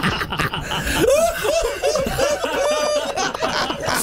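A group of people laughing heartily, with one voice breaking into a quick run of high 'ha-ha-ha' laughs from about a second in.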